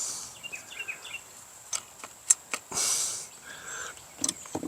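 Small birds chirping over a steady, high insect buzz. Several sharp clicks and a brief rustle of handling cut through it.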